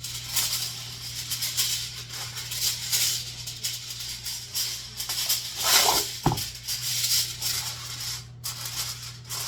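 Aluminium foil crinkling and rustling as it is handled and folded, with a louder crackle and knock about six seconds in and a steady low hum underneath.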